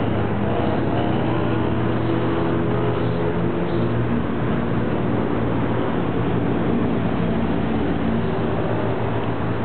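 A steady, unbroken engine-like drone with a low hum.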